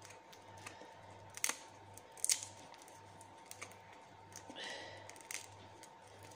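Baked chestnut shells snapping and crackling as they are peeled by hand: a few sharp clicks with fainter ones between, and a short rustle a little past halfway.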